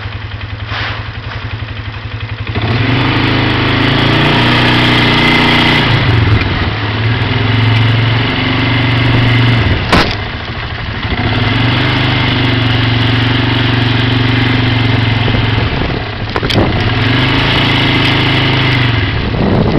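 Small vehicle engine idling, then driven from about two and a half seconds in, its pitch rising and falling as it speeds up and eases off. Two sharp clicks, about ten and sixteen seconds in.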